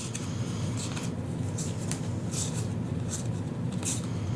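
Foil trading cards being handled and flipped through, with short papery swishes and light clicks, over a steady low background hum.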